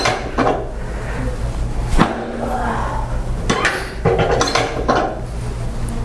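Sharp clicks and knocks from a chiropractic adjustment of the sacrum, coming about every one and a half seconds over a steady low hum.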